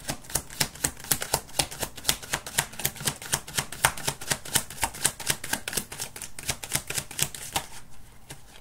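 A deck of tarot cards being shuffled by hand: a rapid, even run of crisp card clicks, about six a second, that stops near the end.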